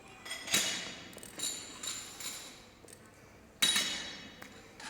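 Loaded barbell and weight plates clanking: a sharp metal strike that rings on, three lighter clinks, then a second loud ringing strike about three seconds after the first.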